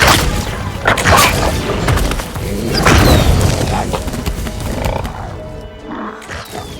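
Animated film soundtrack: music with loud booming hits right at the start, about a second in and around three seconds in, and animal-like creature calls. It grows quieter toward the end.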